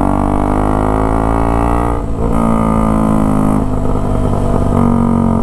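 KTM Duke 200's single-cylinder engine running loud through an aftermarket full exhaust under way, its droning note climbing in pitch with a short break about two seconds in.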